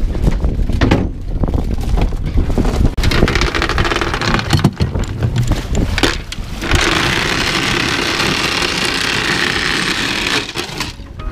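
Galvanised anchor chain paying out of a bucket and over a boat's gunwale, rattling and clinking, with wind rumbling on the microphone. About seven seconds in the clatter gives way to a steady hissing rush lasting a few seconds.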